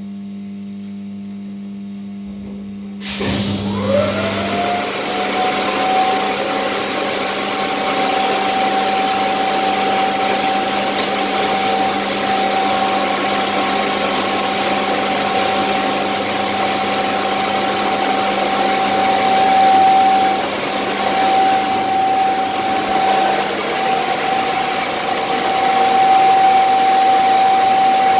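Inside the cab of a ChS4T electric locomotive: a steady electrical hum, then about three seconds in loud machinery noise starts suddenly, with a whine that rises quickly and then holds a steady pitch.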